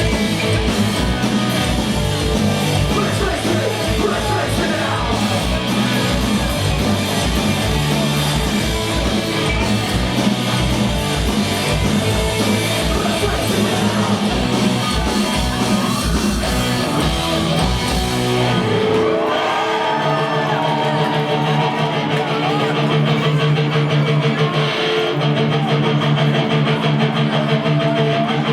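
A punk rock band playing live, with loud distorted electric guitars, bass, fast drums and vocals. About two-thirds of the way through the drums drop out and the guitars and bass ring on with held notes.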